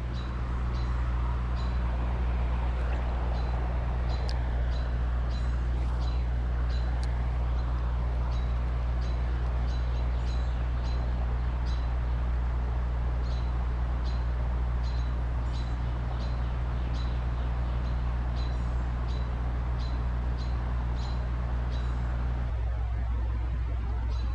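A bird repeating a short, high chirp about twice a second, over a steady low mechanical hum.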